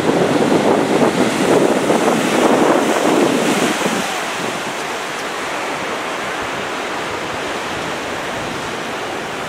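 Ocean surf breaking and washing over a sandstone rock shelf, with wind buffeting the microphone. The rush is a little louder for the first few seconds, then eases to a steadier wash about four seconds in.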